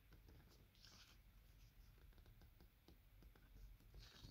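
Faint rustling and crinkling of paper banknotes being handled and shuffled, with small clicks and a couple of brief, slightly louder rustles, one about a second in and one near the end.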